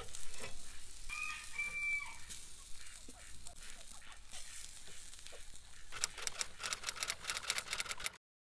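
Bison tenderloin steaks sizzling on a charcoal kettle grill, a steady hiss. A bird gives one held, two-part call about a second in, and a quick run of sharp clicks comes near the end.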